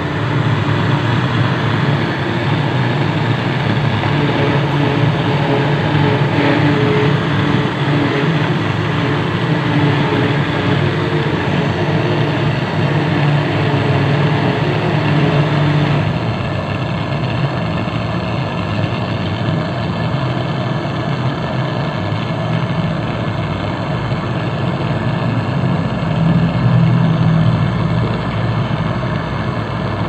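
Gas brazing torch burning steadily with a hiss and low rumble as its flame heats a copper refrigerant-pipe joint on a refrigerator condenser for brazing. The tone shifts slightly, losing some of its high hiss, about halfway through.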